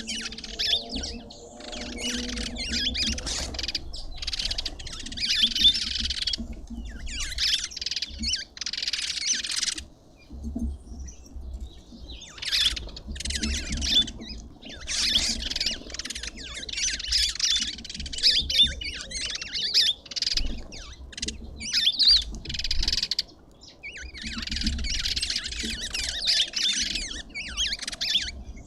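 Birds chattering and squawking in shrill, harsh bursts of a second or two, with a longer lull about a third of the way in and another near the end.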